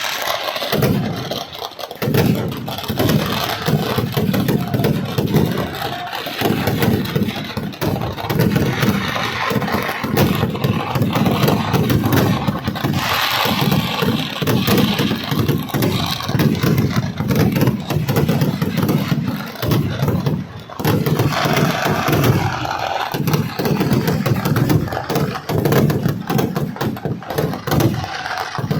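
A continuous rapid barrage of Kerala temple-festival firecrackers: countless explosions running together into a dense rolling rumble, with brief lulls a couple of times.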